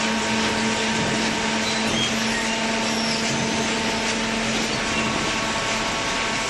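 Hydraulic cardboard baler machinery running steadily: a constant mechanical hum with a few held tones over a noisy wash.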